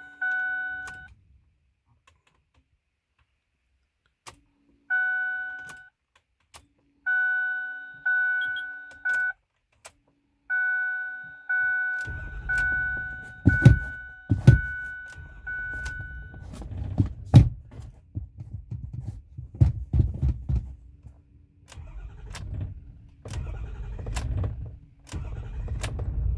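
Dashboard warning chime dinging about once a second, in spells, through the first half. From about twelve seconds in, the 6.4 L Power Stroke V8 diesel of a 2008 Ford F-450 cranks and stumbles with loud, irregular knocks and surges, then settles into a rough, uneven run near the end: the truck's intermittent hard-start fault.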